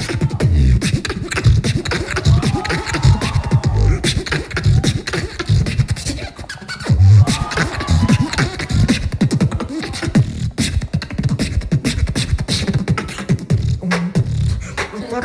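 Beatboxing into a cupped handheld microphone: fast kick, snare and hi-hat clicks over heavy bass hits, with short sung or hummed vocal glides mixed in.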